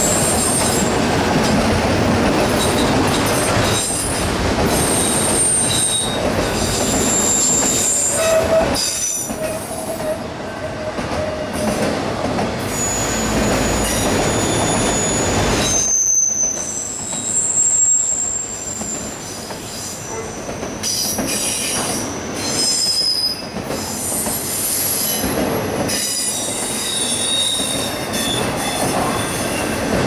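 Autorack freight cars rolling past close by: a steady rumble of steel wheels on rail, with short high-pitched wheel squeals coming and going throughout and a lower, longer squeal about a third of the way through.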